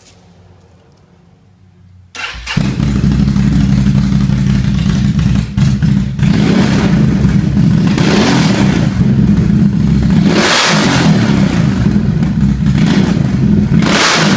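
Can-Am Renegade XXC 1000 ATV's V-twin engine, fitted with an aftermarket slip-on exhaust, starting about two seconds in, then idling with four or five quick revs.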